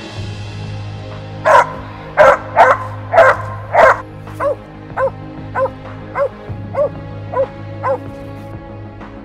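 A mountain cur barking treed at the base of a tree, the hunting dog's signal that it has run a squirrel up that tree. Five loud barks come in quick succession, then a run of about eight shorter, lighter barks at a steady pace of a little under two a second.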